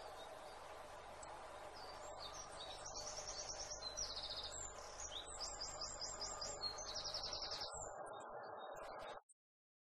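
Small songbirds chirping and singing in quick trills over a steady background hum; all the sound cuts off suddenly about nine seconds in.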